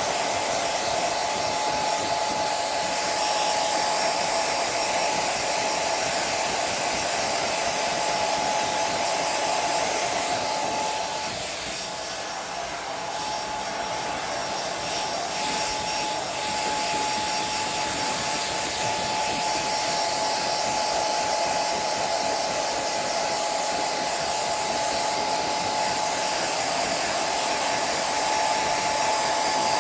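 Electric hair dryer running: a steady rush of air with a high, steady whine. It dips in level for a few seconds about halfway through.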